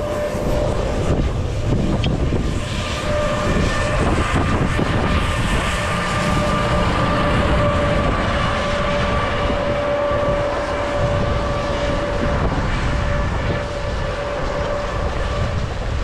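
Wind rushing over a body-mounted camera's microphone during a downhill ski run, with a steady whistling tone through most of it.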